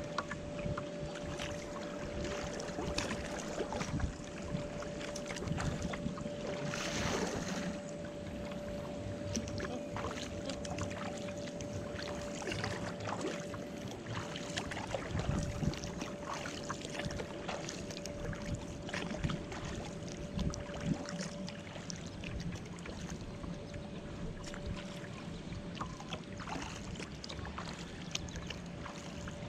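Water lapping and splashing against a moving kayak's hull, with many small splashes and drips and a louder splash about seven seconds in. A steady hum runs underneath.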